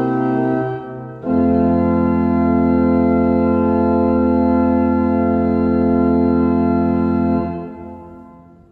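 Pipe organ: a few closing notes, then a full final chord with a deep pedal bass held for about six seconds. It is released near the end and dies away in the church's reverberation.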